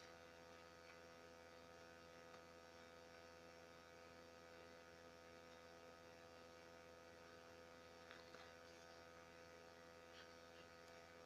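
Near silence: a faint, steady electrical hum, with a couple of faint ticks about eight and ten seconds in.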